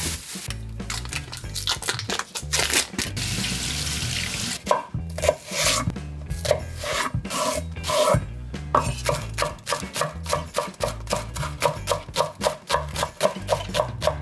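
Scraping and rubbing for about four seconds, then a knife cutting on a wooden chopping board in a steady rhythm that speeds up to about four cuts a second, over background music.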